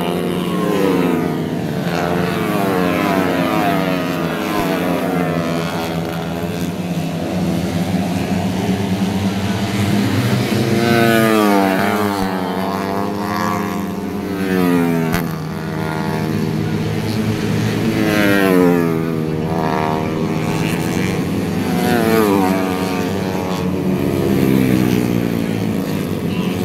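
Four-stroke 130cc racing motorcycles going past one after another at full throttle. Each engine note climbs and then drops in pitch as the bike goes by, and several overlap.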